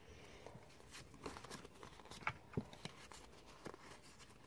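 Pokémon trading cards handled in the hands: a few faint, irregular clicks and scrapes as the cards are slid through the stack.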